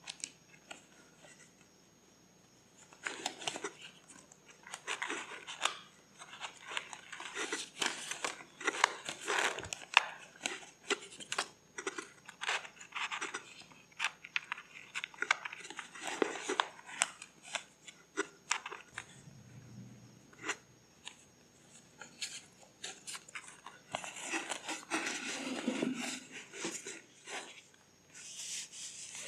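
Paper being handled close to the microphone: irregular crinkling, rustling and clicking in clusters, with quieter pauses near the start and about two-thirds of the way through.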